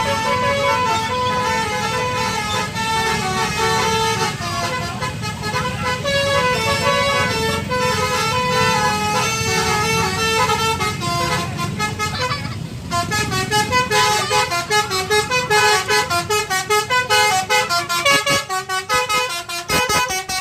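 Tour bus's 'basuri' telolet horn, a multi-tone musical horn, playing a melody over the bus's engine rumble. About 13 seconds in, the tune switches to short, rapid notes.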